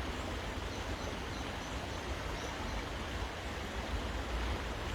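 Steady rushing of a river in the rain: an even hiss of water with a low rumble beneath it.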